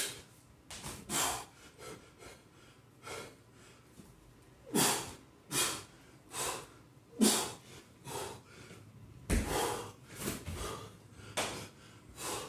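Heavy, forceful breaths and exhalations of a man working hard through kettlebell squats and swings, coming about once every half-second to second, a few with a short grunt. A single low thump sounds about nine seconds in.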